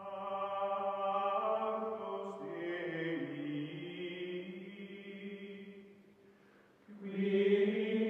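Outro music: a choir-like chant of long held chords, with a change of chord about two and a half seconds in, fading away about six seconds in and swelling back in louder near the end.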